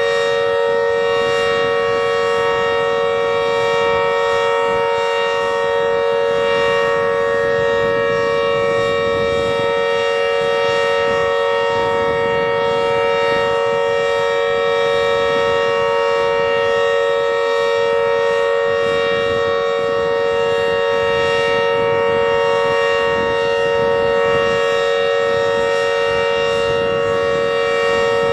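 Warning siren sounding a steady, unbroken chord of several pitches, with no rise or fall, over a rough low rumble.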